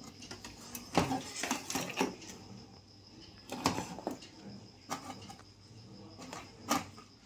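Handling noise from a TV main circuit board as a replacement capacitor is pushed in and soldered: a handful of sharp clicks and knocks, spaced about a second apart.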